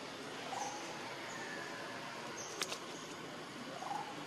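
Outdoor forest ambience: a steady hiss with faint high-pitched thin tones coming and going, a brief click about two and a half seconds in, and two short faint squeaks, one about half a second in and one near the end.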